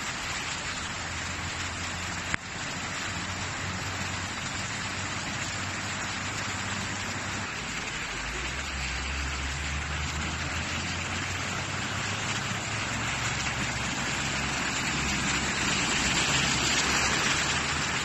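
Heavy rain falling steadily, with the low hum of cars driving through the flooded road; the hum grows stronger about halfway through and the rain noise rises near the end. A single sharp click about two seconds in.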